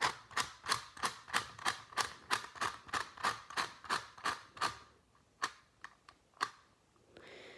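Qiyi clock puzzle's dials being turned, the gears clicking at each hour step: a quick, even run of sharp plastic clicks, about four a second, for nearly five seconds, then two single clicks.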